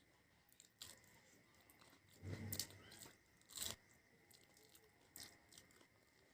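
Close-up mouth sounds of eating fried snack food: a few separate crunchy bites and chewing, the loudest crunches about two to four seconds in.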